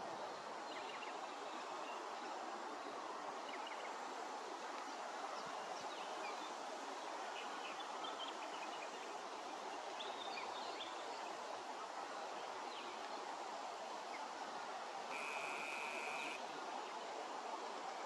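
Steady outdoor background noise beside a reedy pond, with faint, scattered chirps of small birds and a brief buzzing trill about fifteen seconds in.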